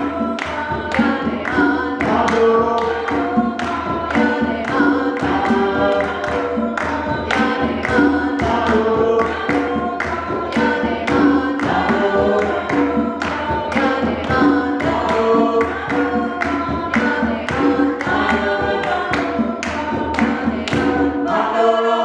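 Ensemble of Zimbabwean-style wooden marimbas playing a fast, steady interlocking pattern of struck notes while the players sing together in unison and harmony.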